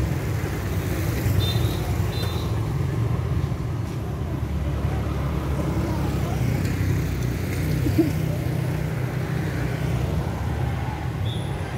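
Road traffic running steadily with a low rumble, and one brief louder blip about eight seconds in.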